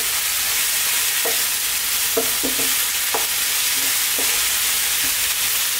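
Ground chicken, kidney beans and chopped vegetables sizzling steadily in a frying pan while a wooden spoon stirs them, scraping against the pan a few times.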